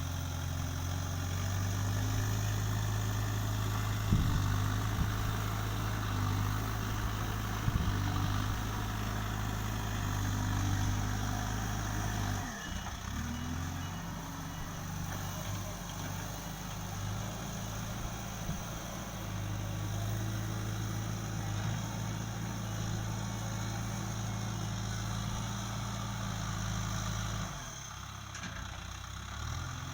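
Backhoe loader's diesel engine running steadily, with two sharp knocks about four and eight seconds in and a drop in engine level near the end.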